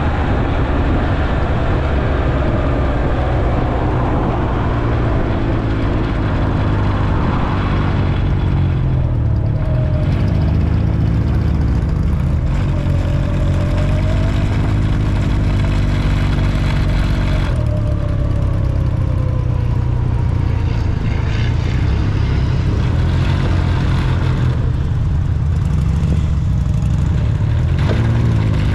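Motorcycle engine running at road speed, with wind and tyre noise; the engine note rises and falls a little partway through.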